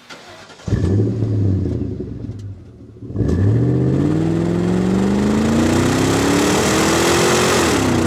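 A car engine starts up and runs, then about three seconds in it accelerates hard in one long, steady climb in pitch before dropping back near the end.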